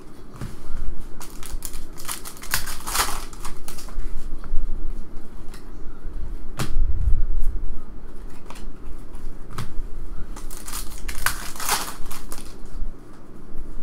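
Trading cards being handled and flipped through by hand, with a sharp click about halfway, then a foil card pack wrapper crinkling and tearing as it is opened near the end.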